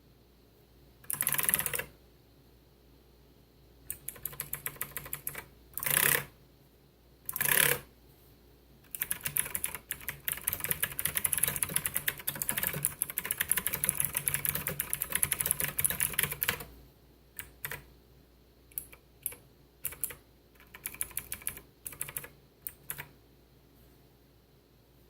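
Clicky blue-switch mechanical keyboard (Xenics STORMX ZERO) being typed on: a few short bursts of keystrokes, then several seconds of fast continuous typing from about a third of the way in, then scattered presses near the end.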